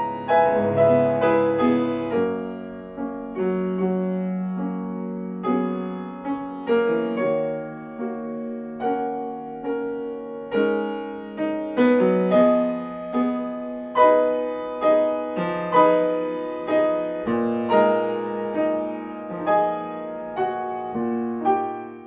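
Piano music over the credits: notes struck one after another and ringing out over low chords, fading out at the very end.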